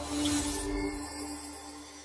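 Channel intro music: a held synth drone with a brief whoosh at the start, fading out.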